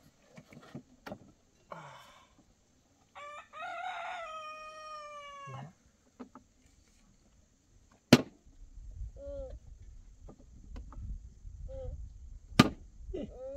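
A rooster crowing once, a single drawn-out call of about two and a half seconds. Later two sharp knocks come about four seconds apart over a low rumble.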